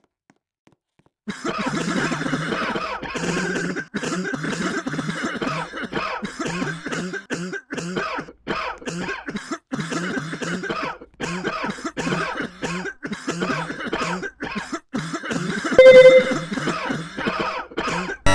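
A person coughing over and over in a long fit, starting about a second in, the coughs coming in quick runs with short breaks. Near the end there is a brief, much louder sound with a steady pitch.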